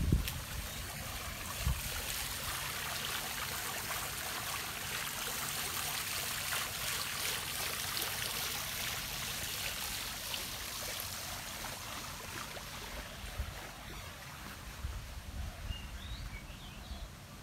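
Water splashing and trickling down the basins of a tiered garden fountain, a steady rush that grows louder in the middle and fades toward the end.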